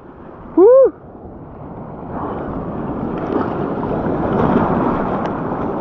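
Surf washing and splashing, building up from about two seconds in, with wind on the microphone. Near the start, a short loud cry that rises and then falls in pitch.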